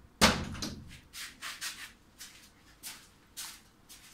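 A sharp knock, then a string of short rubbing and scraping sounds about every half second: wires and electrical parts being handled on a workbench.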